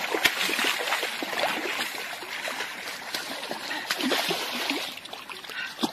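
A hooked fish splashing at the water's surface on a short line, with irregular spatters of water.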